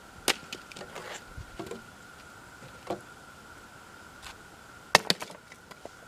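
Wooden knocks and clunks of cut firewood pieces being handled and set down: a sharp knock, a quick cluster, a single knock, then a loud double knock near the end. A faint steady high tone runs underneath, and the chainsaw is not running.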